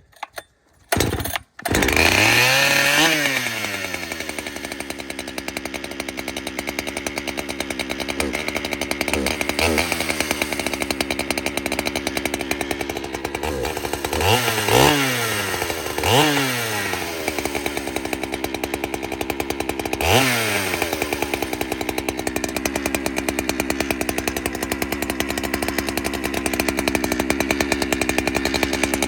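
Husqvarna 395 XP chainsaw's large two-stroke engine starting after a couple of sputters about a second and a half in, revving high, then settling to idle. It is blipped a few times with quick rises and falls in pitch, and idles steadily near the end.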